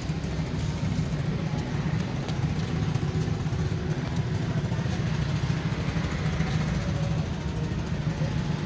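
A small engine running steadily at idle, a constant low hum.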